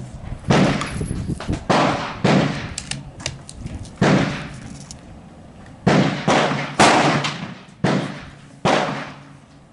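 Rifle shots: about nine sharp reports at irregular spacing, several in quick succession between about six and nine seconds in, each trailing off in an echoing tail.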